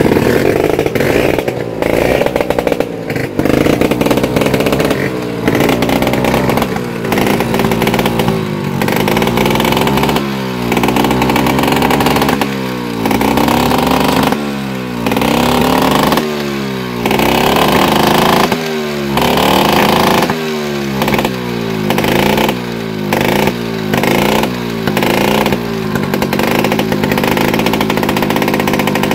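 Modified Vespa scooter engine being revved hard over and over, the pitch climbing and dropping back with each throttle blip, about once a second through the second half. It is an engine test before a ride.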